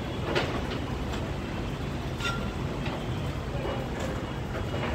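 Diesel engines of heavy construction machinery running steadily, a low rumble with a few faint knocks.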